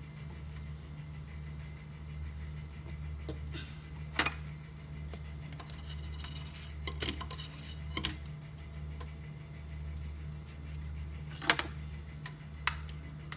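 A spatula working in a nonstick frying pan as a pancake is turned and lifted out, with a few sharp knocks and clinks of utensil on pan and bowl, over a steady low hum.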